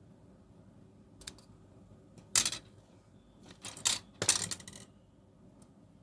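Small hard tools and pen parts clinking and clattering against a hard work surface as they are handled. There is a light click about a second in, then three short bursts of clatter between about two and five seconds in.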